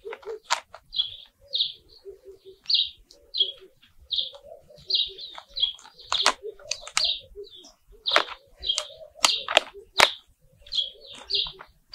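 A bird chirping over and over in short high notes, mixed with sharp crackles and snaps as fingers tear roots out of the potting soil.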